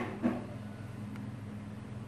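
Quiet room tone with a low steady electrical hum and a faint click about a second in; no continuity beep from the multimeter.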